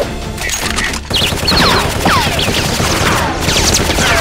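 Dubbed machine-gun fire sound effect: a dense run of rapid shots that grows louder about a second in, laced with high whistling tones that fall in pitch.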